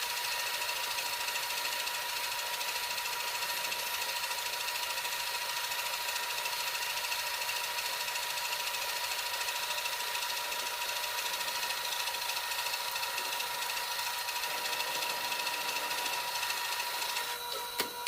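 Metal lathe running steadily: a constant high whine over a hiss, breaking off just before the end.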